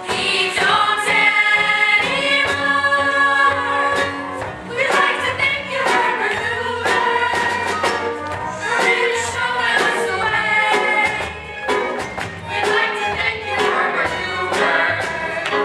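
A chorus of voices singing a stage-musical ensemble number with instrumental accompaniment and a steady beat.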